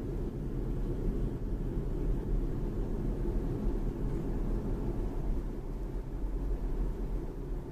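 BMW 3 Series (G20) being driven: steady low road and tyre rumble.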